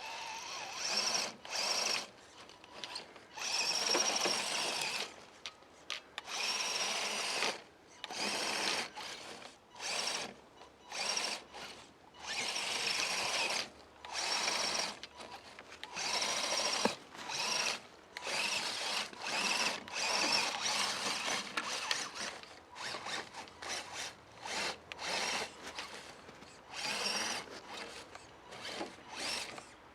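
Electric motor and drivetrain whine of an Axial SCX10 Deadbolt RC crawler, coming in short bursts of throttle that start and stop every second or two.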